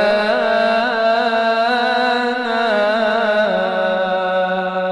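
A solo voice holds a long, ornamented melisma in an Arabic devotional chant (ibtihal), the melody bending up and down in small turns over a steady low drone.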